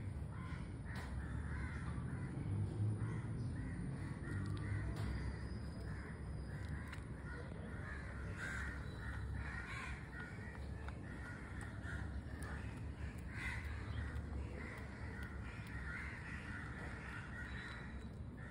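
Harsh animal calls, many short ones overlapping in an irregular chatter, going on throughout over a steady low rumble.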